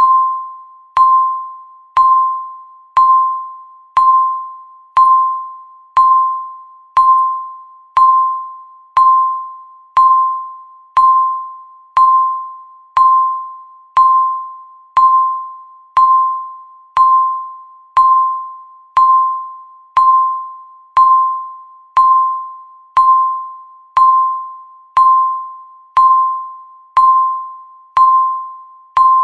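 Countdown timer's per-second tick sound: a short single-pitched electronic tone that sounds exactly once a second, each one starting sharply and fading away quickly.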